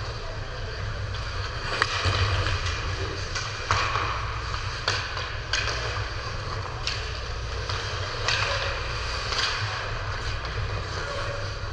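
Sharp cracks and knocks of play in a team game, such as sticks striking a puck or ball, coming irregularly every second or so over a steady low rumble.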